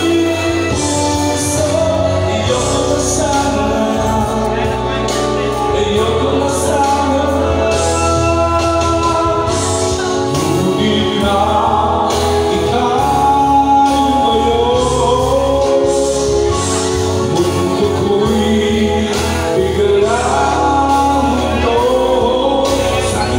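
A singer singing a song into a handheld microphone over instrumental accompaniment with a steady bass line.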